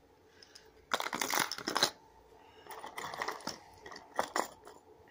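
Fishing lures and tackle being rummaged through in a tackle box, hard pieces clattering and rattling in three bursts, the longest and loudest about a second in.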